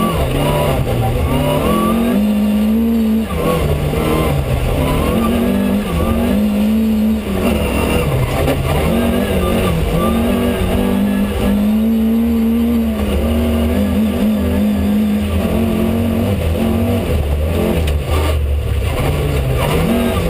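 Rally car engine at speed, heard from inside the cockpit, its revs climbing and dropping again and again.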